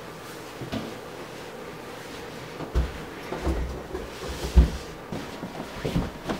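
Dull thumps of a limp body being dragged down carpeted stairs, bumping step by step. The loudest bump comes about four and a half seconds in.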